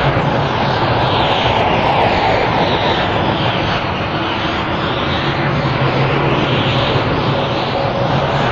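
Anime Super Saiyan Berserker power-aura sound effect: a steady, loud rushing energy noise with a low hum underneath and repeated whooshing swells.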